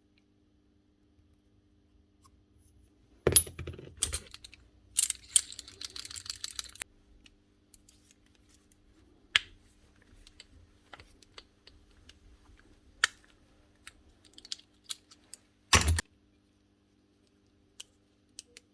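Clicks and clatter of small metal parts and tools being handled on a workbench: a loud knock about three seconds in, a few seconds of rattling and jingling, scattered light ticks, and another loud knock near the end.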